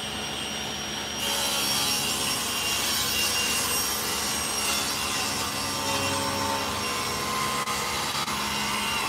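Table saw running and ripping a wooden board along the fence. The blade bites into the wood about a second in and cuts steadily.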